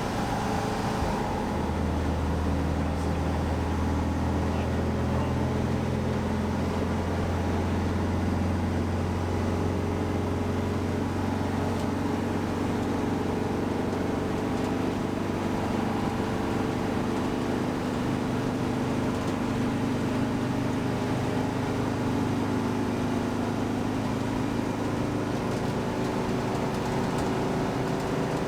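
Air-cooled VW bus flat-four engine running steadily at cruising speed, with road noise. A deep drone comes in about a second in and holds.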